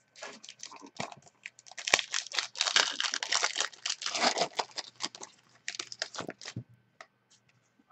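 Foil wrapper of a basketball trading-card pack being torn open and crinkled by hand: a dense run of crackling, loudest in the middle, that stops about six and a half seconds in.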